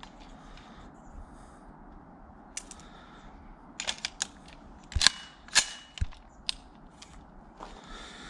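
Zbroyar Z9 9x21 pistol-calibre carbine: a few light mechanical clicks, then about five seconds in two sharp shots a little over half a second apart, followed by a couple of fainter clicks.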